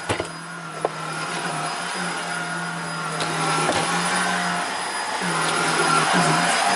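Vacuum cleaner running with a Filter Queen Majestic 360 power nozzle, a steady motor hum with a slightly wavering whine that slowly grows louder, after a few clicks at the start; a test run of the freshly serviced nozzle.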